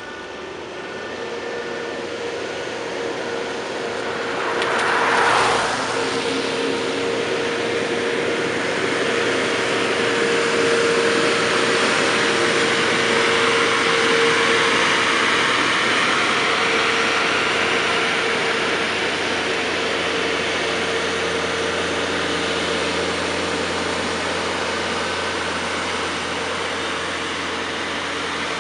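Railway maintenance-of-way machines and a hi-rail truck passing close by on the track, their diesel engines running over a rolling rumble of wheels on rail. The sound builds from the start, peaks in a short rush about five seconds in, swells again mid-way as the track machine goes by, and eases off near the end. A steady tone runs through the first half.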